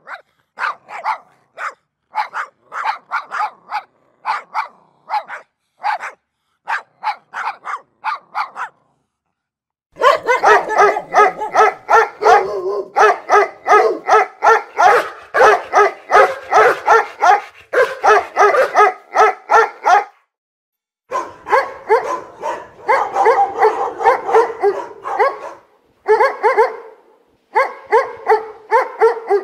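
Dogs barking repeatedly: separate barks about twice a second for the first nine seconds, then after a short pause a louder, denser run of rapid barks.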